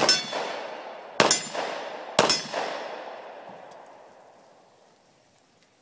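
Three pistol shots about a second apart, each followed by the metallic ring of a struck steel target. The ringing fades out over a few seconds after the last hit.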